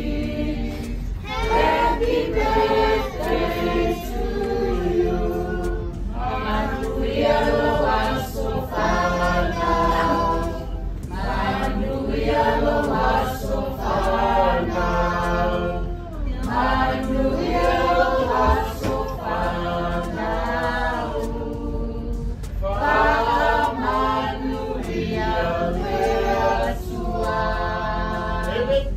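A group of voices singing together unaccompanied, in phrases with short breaks between them, over a steady low hum.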